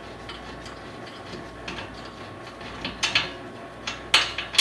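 Hand tools and steel bolts clinking while a front brake caliper is unbolted: light clicks at first, then several sharp metal-on-metal clinks in the last second and a half.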